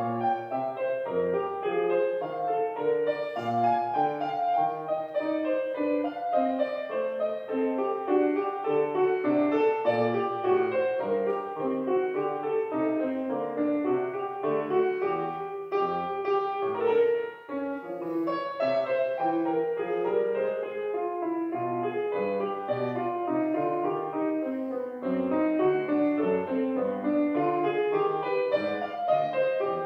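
Solo grand piano playing a classical piece, a steady flow of distinct notes with one brief break in the playing a little past halfway.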